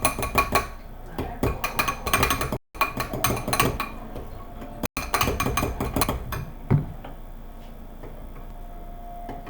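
A mixing utensil clinking and scraping against a bowl as slime ingredients are stirred: a quick, dense run of clinks that stops about six and a half seconds in, followed by a single knock.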